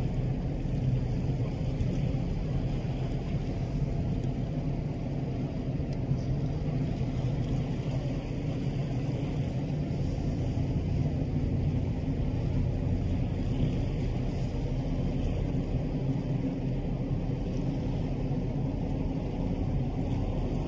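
Large container ship passing close while under way, its machinery giving a steady low rumble over a soft hiss of water.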